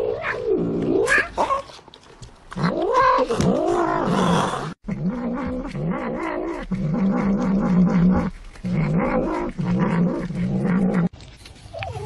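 Domestic cats yowling and growling over food: first several yowls that rise and fall in pitch, then, after an abrupt cut about five seconds in, long low growls in four stretches with short breaks.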